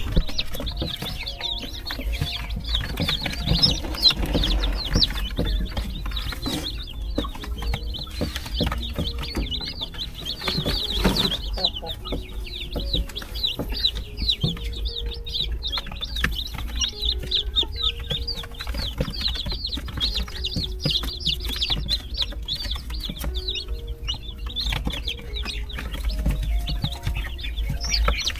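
A box of newly hatched chicks peeping constantly, a dense stream of rapid high cheeps from many birds at once.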